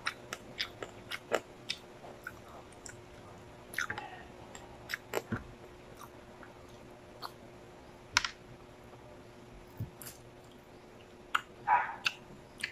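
Close-miked chewing of frog adobo and rice, with irregular wet mouth clicks and smacks that are loudest near the end. A faint steady hum runs underneath.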